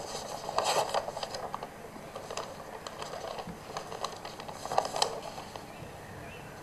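Paper rustling and soft handling knocks at a lectern microphone, in two short spells, over a steady low background hiss.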